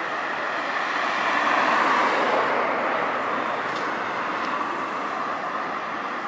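Road traffic noise: a car passes close by, swelling to its loudest about two seconds in and then easing. Under it runs the engine of a Scania K360IA city bus pulling uphill toward the camera.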